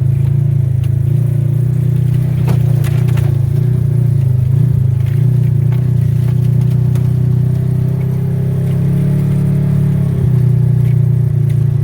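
A motor engine running steadily at an even speed, with a few brief clicks or knocks about two and a half to three seconds in.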